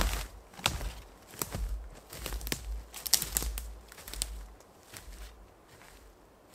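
Footsteps on the forest floor: irregular crunches, rustles and sharp snaps under a hiker's boots, growing fainter after about four seconds as the walker moves away.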